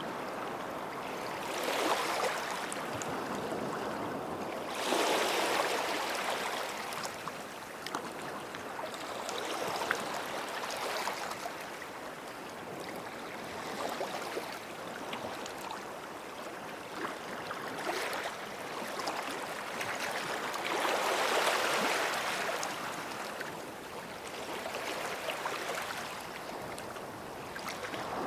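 Small sea waves washing in at the shoreline, a rushing swell every few seconds that fades back between them, with the biggest washes about five seconds in and again past the middle.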